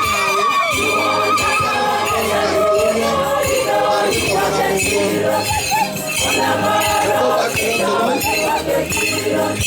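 Church choir singing a hymn with instrumental accompaniment, the voices carrying a continuous melody over a steady low backing.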